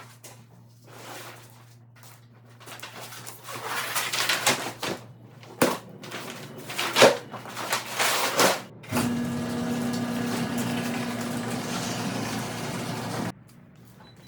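Rustling and clicking of gear being handled, then a small electric motor runs with a steady hum for about four seconds and cuts off suddenly.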